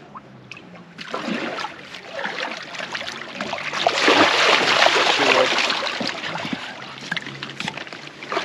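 Water splashing and sloshing as a large fish is brought to the bank and netted, loudest about four to five seconds in and easing off after.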